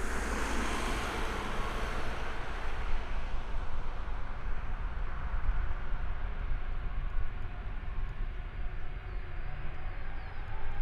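The four Aviadvigatel PS-90A turbofans of an Ilyushin Il-76TD-90VD at taxi power: a steady low rumble and hiss, loudest in the first couple of seconds, with a faint rising whine near the end.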